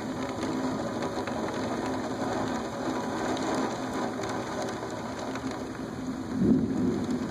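Steady rain falling during a thunderstorm, with a brief louder low sound about six and a half seconds in.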